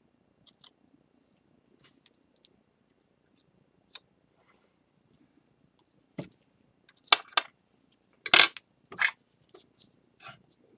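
Scattered small clicks, taps and brief scrapes of hands handling tools and materials at a work bench. They are sparse at first and bunch together in the second half, the loudest about eight seconds in.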